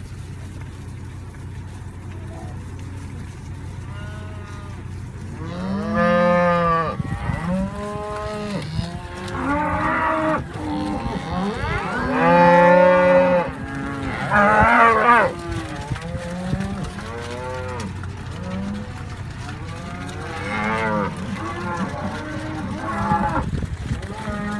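A herd of beef cattle mooing, many long calls one after another and sometimes overlapping, starting about four seconds in and loudest around the middle. A low steady hum runs underneath.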